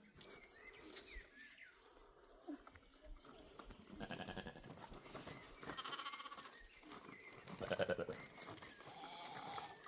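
Goats bleating: three wavering calls, about four, six and eight seconds in, the last one the loudest.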